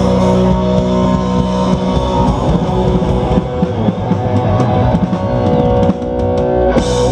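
Live rock band playing: electric guitars through combo amps over a drum kit.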